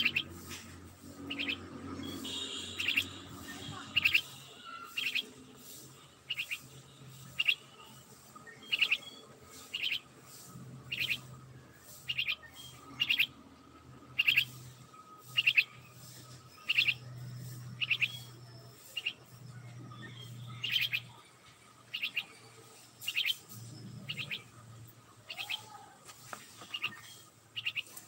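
Caged myna calling, a short sharp chirp repeated about once a second.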